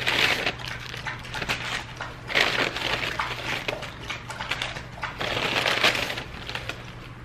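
Paper takeout bag and paper-wrapped biscuit sandwiches rustling and crinkling as they are pulled out and handled, in several bursts.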